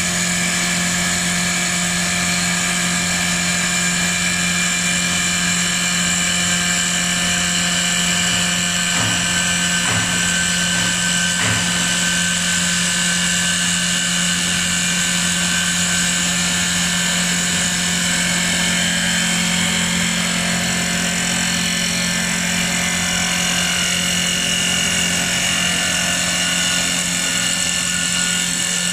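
CNC wood turning lathe cutting a spinning wooden blank: a steady machine whine with several high tones over a constant low hum, and the hiss of the cutter on the wood.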